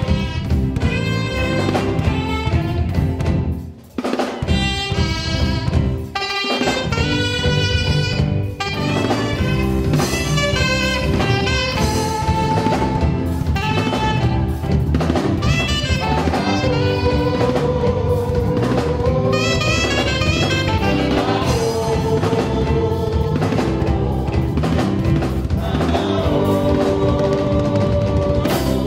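Live gospel band music: a saxophone plays the melody over a drum kit, keyboard and electric guitar, with brief breaks about four and six seconds in.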